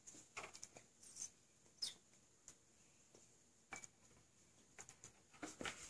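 Near silence with a few faint light clicks and taps, and one brief high squeak about two seconds in.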